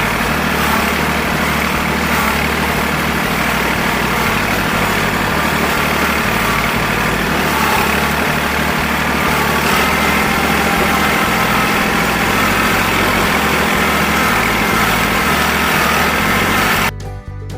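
Kubota L2501 tractor's three-cylinder diesel engine running steadily, loud and close. Near the end it gives way abruptly to music.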